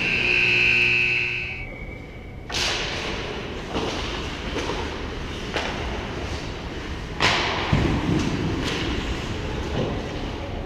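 Ice hockey play on an indoor rink: a long high-pitched signal tone lasting about two seconds at the start, then sharp cracks of pucks and sticks hitting the ice and boards, echoing, over steady rink noise.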